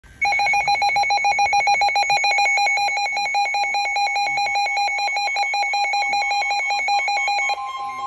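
Midland S.A.M.E. weather alert radio sounding its alarm for a tornado warning: a loud, rapid pulsing beep that stops near the end and gives way to a steady tone.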